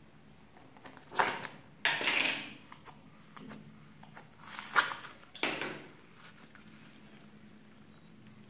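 Handling a plastic tub of floam: the lid comes off, then a finger presses and pokes into the foam-bead slime, in about four short bursts of squishy handling noise.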